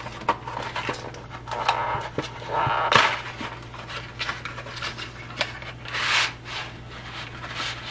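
Kitchen handling noise as pasta goes into a pot of boiling water: repeated scraping and rubbing with scattered clicks, and a sharper knock about three seconds in, over a steady low hum.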